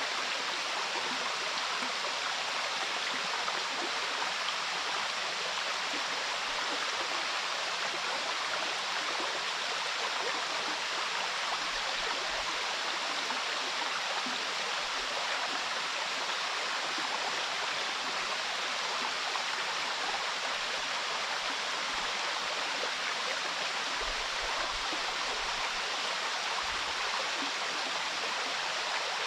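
A river and a waterfall rushing together in a steady, even wash of water noise, heard from the middle of the flowing stream.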